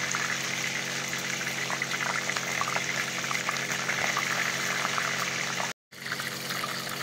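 Chicken-and-potato doughnut patties shallow-frying in hot oil in a nonstick pan, sizzling steadily with small crackling pops over a low steady hum. The sound cuts out for a moment about six seconds in, then the sizzling resumes.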